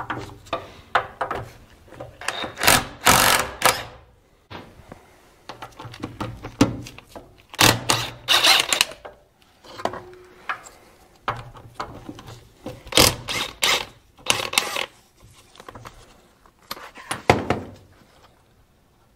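Metal tool work on a Caterpillar D4's transmission case: clanks and clicks of hand tools on the linkage, with short runs of a cordless drill/driver. The sounds come as a string of short loud bursts a few seconds apart.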